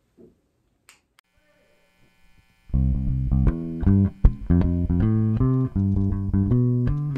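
Near silence with a couple of faint clicks, then about two and a half seconds in a small rock band starts playing: electric bass and electric guitars over drums, in an instrumental groove.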